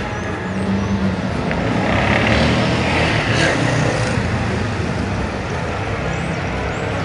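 Street traffic: steady road noise, swelling louder about two to four seconds in as a vehicle passes.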